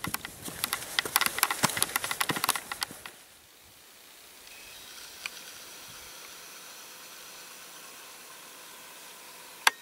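Close, rapid crunching and rustling for about three seconds: a hiker walking a rocky trail with a handheld camera, boots on gravel and gear brushing the microphone. Then a faint steady outdoor background, with one sharp click near the end.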